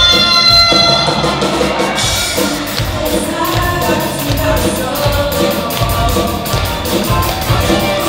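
A student rock band plays live with drums, electric guitars and keyboard while several girls sing into microphones. A note is held for about the first two seconds, then the band carries on over a steady drum beat and the singing comes back in.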